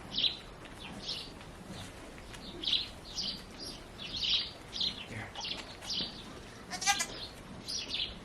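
A newborn lamb gives one short, high bleat about seven seconds in. Small birds chirp repeatedly throughout.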